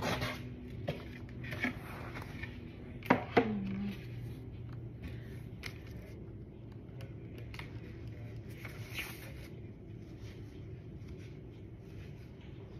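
Knocks and clatters of a child's wooden chair panels and parts being handled during assembly, the two loudest close together about three seconds in, then a few quieter taps, over a faint steady hum.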